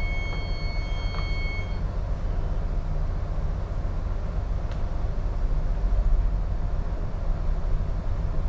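Steady low rumble of a container ship's engine and hull heard on the bridge, with the main engine just put to dead slow ahead. A high electronic beep is held for about two seconds at the start.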